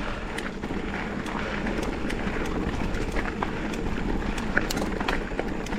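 Mountain bike rolling along a dirt singletrack trail: steady tyre and riding noise with scattered small clicks and rattles.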